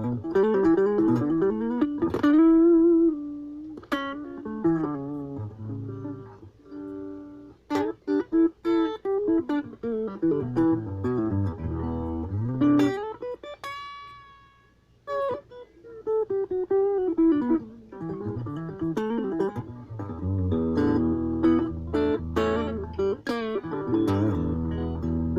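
Ibanez AXS42 electric guitar, rewired with solid-core vintage wire, played as a phrase of single notes with bends and slides. A bright ringing high note sounds about midway, and fuller chords come near the end.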